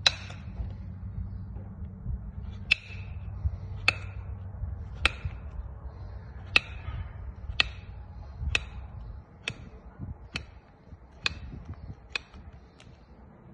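Farrier's hammer tapping on horseshoe nails at the hoof wall: a sharp metallic tap with a brief ring about once a second, the taps getting fainter after about nine seconds.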